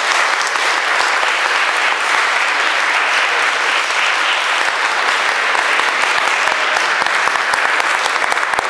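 An audience applauding: dense, steady clapping from a roomful of people.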